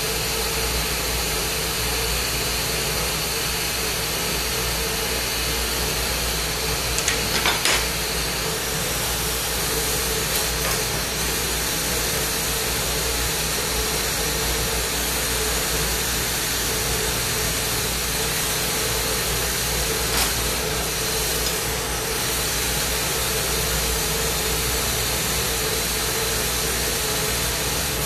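Lampworking bench torch burning with a steady hiss under a low steady hum while borosilicate glass is worked in the flame; a few short clicks come about seven to eight seconds in.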